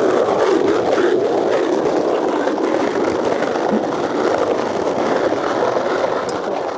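Skateboard wheels rolling fast over rough concrete: a loud, steady rolling rumble.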